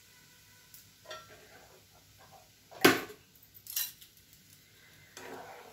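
Metal kitchen utensils clinking, with a loud sharp clank about three seconds in and a second clank just under a second later.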